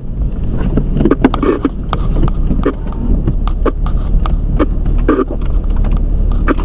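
Rain pelting a car in a severe thunderstorm: irregular sharp taps on the windshield and body over the steady low rumble of the car driving in wind.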